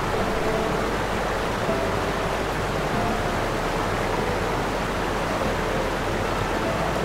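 Steady rushing water noise, with a few faint short held tones over it.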